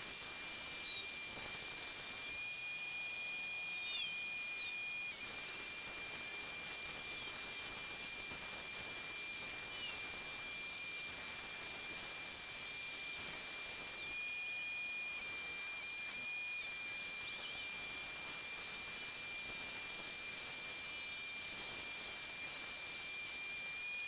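Steady high-pitched whine over a faint hiss, with a few short chirps now and then; no engine or grinder running.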